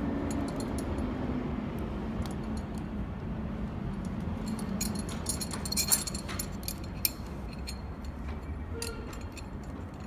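Light metallic clinks and rattles of a stainless steel cable, ferrule and D-ring being handled, with a couple of sharper clicks about six and seven seconds in. A steady low hum underneath.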